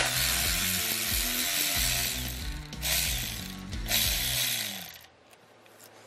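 A power ratchet runs, backing out the 3/8-inch bolts that hold the shift tower onto an NV5600 manual transmission. It runs for about three seconds, then in two shorter bursts, and stops about five seconds in.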